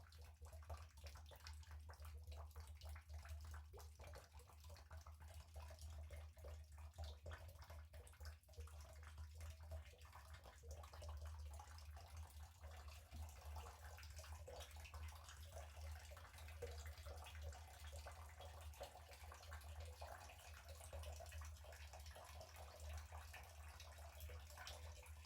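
Near silence: a steady low hum with faint crackling room noise.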